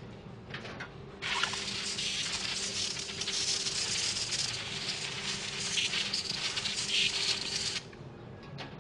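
Paint spray gun triggered for one continuous blast of air and spray, a steady hiss lasting about six and a half seconds that starts and stops abruptly.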